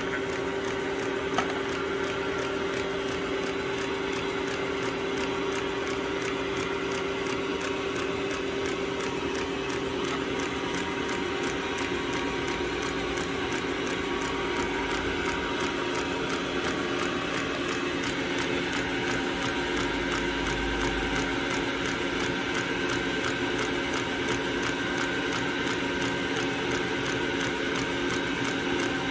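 Small Wolf & Jahn bench lathe running steadily in its fastest speed step, at about 1200 rpm: the electric motor, belt drive and spindle give a steady hum with a fast, even ticking over it.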